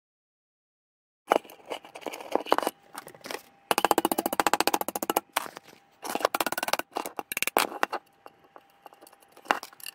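Pliers and thin metal pins clicking and scraping against a model excavator bucket as the pins are worked into it by hand, starting about a second in. Partway through comes a fast run of rattling clicks.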